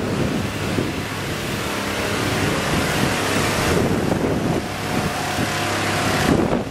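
Pressure washer (gerni) running steadily, its motor humming under the hiss of the high-pressure spray blasting dried flood mud off the ground.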